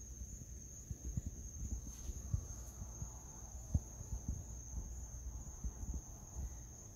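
Steady, unbroken high-pitched chorus of crickets. Underneath are soft, irregular low knocks and rustling, the loudest about four seconds in.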